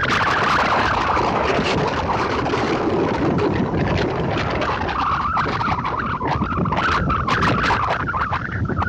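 Ocean surf: waves breaking offshore and washing up a sandy beach in a loud, continuous rush of noise.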